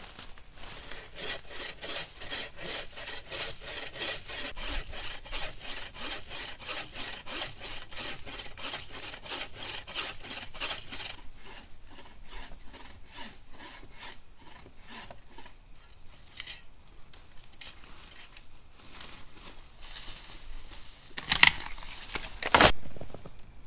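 Wooden frame bucksaw cutting through a small oak trunk by hand in quick, even strokes, about three a second, which slow and fade about halfway through and then stop. Two loud cracks near the end as the cut trunk gives way.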